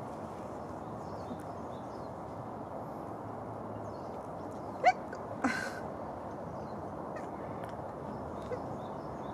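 A cat gives a short rising chirp about five seconds in, followed half a second later by a brief sneeze-like huff, over steady outdoor background noise.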